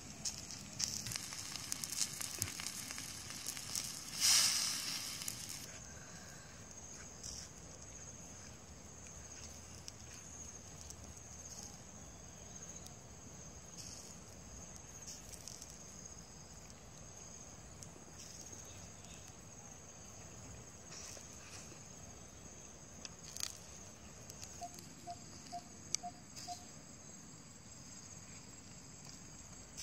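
Insects chirping steadily and high-pitched, with scattered clicks and rustles of handling; a brief loud rustle about four seconds in and a short run of quick soft pips near the end.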